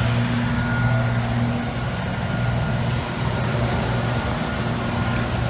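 Goodman package heat pump running: a steady low electrical hum with an even rush of fan air.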